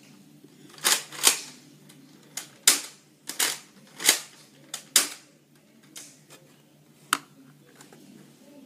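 Sharp plastic clicks and snaps from a Nerf N-Strike Elite CrossBolt blaster being handled and worked, about a dozen over the first seven seconds, several in quick pairs.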